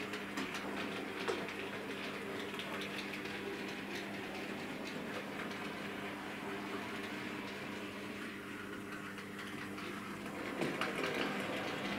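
Bachmann OO gauge Class 56XX tank locomotive model running along the track: the steady hum of its small electric motor, with sharp clicks of the wheels over the track and a cluster of clicks near the end.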